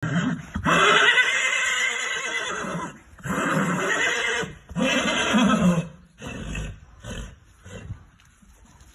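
Horse neighing: three long, loud calls in the first six seconds, then shorter, softer sounds.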